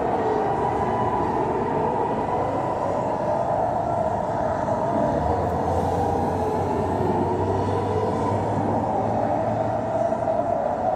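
Siren wailing, its pitch rising and falling slowly over a few seconds, with more than one sweeping tone heard at once.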